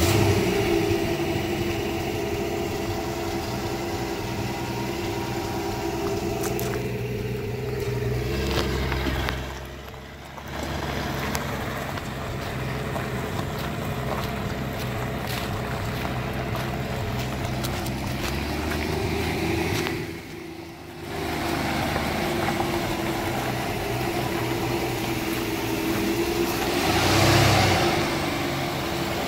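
1965 Mercury M100's freshly rebuilt 300 cubic-inch straight-six idling steadily. The sound drops away briefly twice, and there is a short louder swell near the end.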